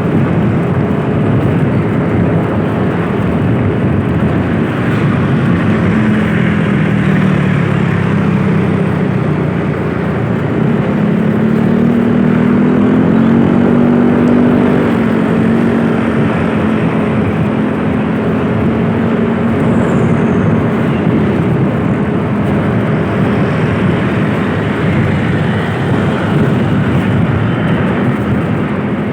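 Engine and road noise from a moving vehicle. The engine note rises and falls a few times in the first half, then holds steady.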